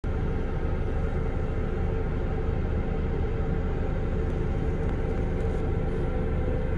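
Engine of a multi-axle heavy-haul transporter running steadily as it creeps along under a huge steel pipe section: a low, even rumble with a steady hum.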